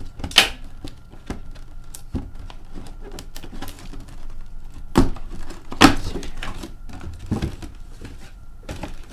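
Cardboard mini-helmet box being opened and handled: scattered taps and knocks, the loudest about half a second in and about five and six seconds in.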